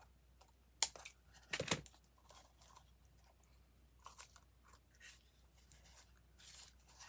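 Scissors snipping: two sharp cuts in the first two seconds, then faint small handling noises.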